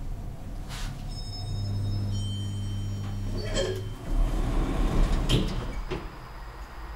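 SMW elevator arriving at its floor: the car's steady low drive hum, with faint high tones over it, stops about four seconds in, and the automatic doors slide open with a clunk.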